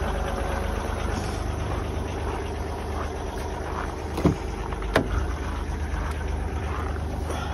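Range Rover 3.0 TDV6 diesel V6 idling steadily while still cold, started at −17 °C after ten days standing. Two sharp clacks come about four and five seconds in as the driver's door handle and latch are worked.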